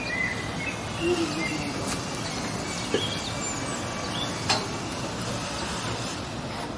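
Construction-site ambience: a steady din of background noise, broken by sharp knocks about two, three and four and a half seconds in, with short bird chirps above it.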